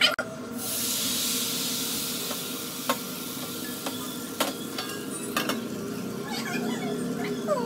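Food sizzling in a hot pan: the hiss starts suddenly about half a second in and slowly dies down, while a spoon or spatula knocks against the pan a few times during stirring.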